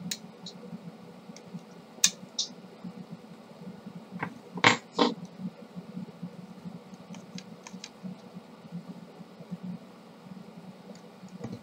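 Plastic clicks and knocks from the end housing and gears of a laser-printer cartridge being handled and fitted together by hand. The clicks are scattered, with a sharper pair about two seconds in and the loudest pair about five seconds in.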